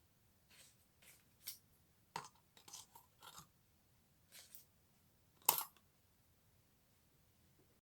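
Faint, scattered taps and rustles of small objects being handled, about ten short sounds in all, the loudest a sharp tap about five and a half seconds in.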